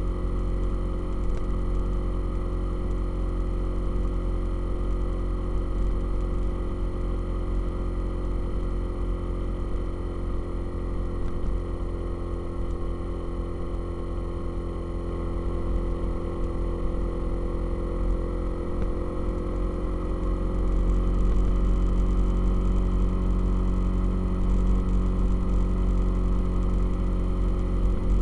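Motorcycle engine running at a steady cruise under heavy wind rumble on the microphone; it grows louder about three-quarters of the way through.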